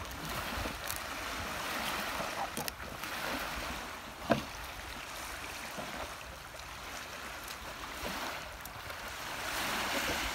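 Small waves lapping and sloshing in shallow water, with wind on the microphone, swelling and easing. A single sharp knock about four seconds in.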